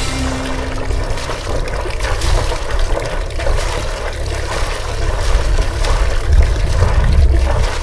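Outdoor harbour ambience: a steady rushing noise with water sounds and a heavy, uneven low rumble.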